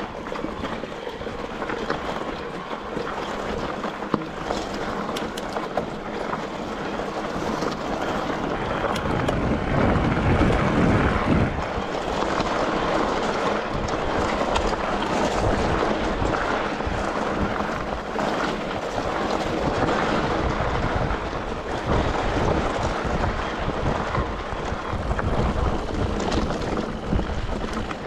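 Wind buffeting the microphone as a steady rushing noise, growing louder and heavier in the low end from about nine seconds in.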